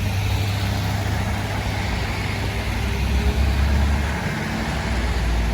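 UD Quester truck's diesel engine running with a deep, steady drone; about four seconds in its pitch drops to a lower note.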